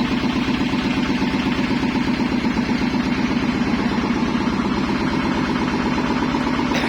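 An engine-driven processing machine running steadily: an even, loud hum with a fast regular pulse. A short knock comes near the end.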